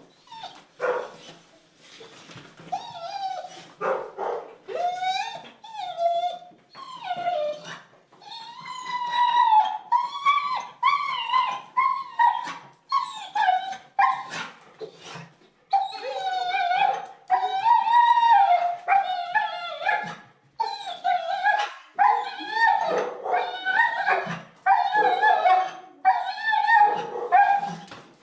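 A dog whining: a long run of high, wavering whimpers and yips, one after another.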